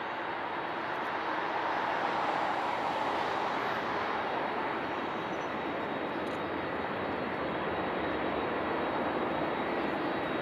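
Jet engines of a landing Boeing 777-200ER, a continuous rushing sound that swells slightly about two seconds in and then holds steady.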